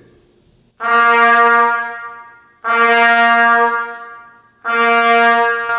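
Trumpet playing the same note three times, each held for about a second and a half and each started with a tongued 'D' attack. This is a note-attack (articulation) exercise.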